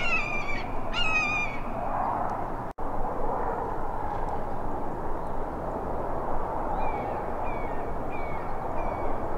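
Birds calling in the open: three short calls falling in pitch, about a second apart, at the start, then several fainter short calls near the end, over steady background noise.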